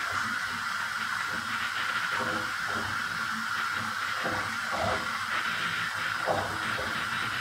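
Bath tap running steadily, water pouring into a filling bathtub, with a few brief louder sounds about halfway through and near the end.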